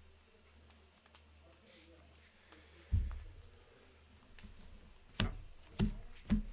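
A few sharp clicks and taps, with a single louder thump about three seconds in, over a steady low room hum.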